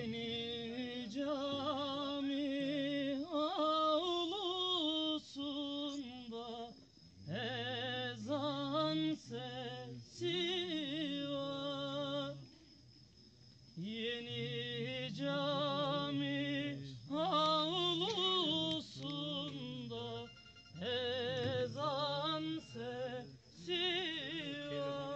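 Solo unaccompanied singing of an old Turkish folk song: one voice in long, ornamented phrases with a wavering pitch, broken by short pauses for breath, the longest about halfway through.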